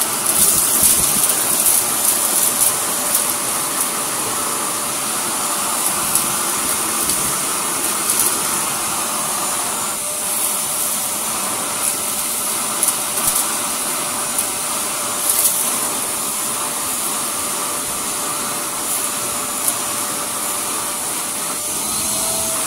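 Tough Master 1000-watt wet and dry cyclonic vacuum running at full suction through its crevice tool, a steady rush of air over a steady motor whine. Scattered sharp clicks and rattles come as grit and dirt are sucked up off the carpet.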